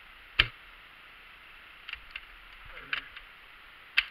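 Two loud, sharp cracks about three and a half seconds apart, the first the loudest, with a few fainter clicks between them and a faint distant voice.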